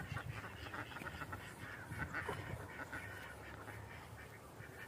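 A flock of domestic ducks on a pond calling faintly, a scattered run of short quacks.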